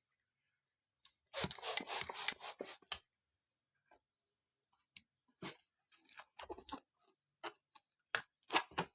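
Plastic balloon packaging crinkling and rustling as it is handled and opened: a dense crinkle about a second and a half in, then short scattered rustles and clicks.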